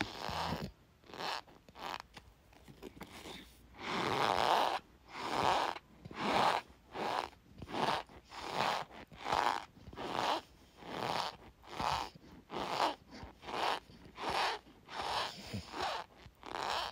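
Argo cornstarch squeaking and crunching as a spoon presses and scoops it in a glass bowl. The strokes come in a steady run of about one and a half a second, fainter and scattered for the first few seconds, then louder.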